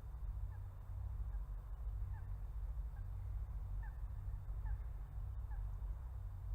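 Faint short bird calls, seven or eight of them a fraction of a second each, over a steady low rumble.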